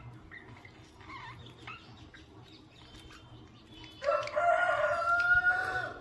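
Pet budgerigars chirping softly in short, quick notes. From about four seconds in, one loud drawn-out call, rising slightly at its start and then held for nearly two seconds, drowns them out.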